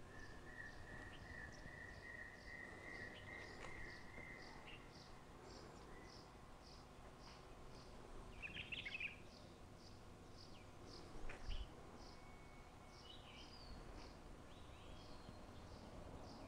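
Faint outdoor ambience of insects and birds: a high chirp repeating a little over twice a second, a long steady high note for the first few seconds, and a few short chirps about halfway through.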